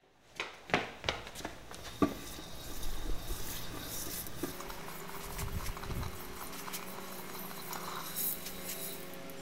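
A red-hot steel knife blade quenched in a can of oil to harden it. A few sharp metal clanks come first, then a steady crackling, bubbling hiss as the oil flares and boils around the blade.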